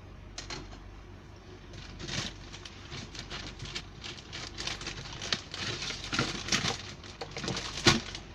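Makeup containers being handled and rummaged through: a quick run of small clicks and clatters, with a sharper knock near the end.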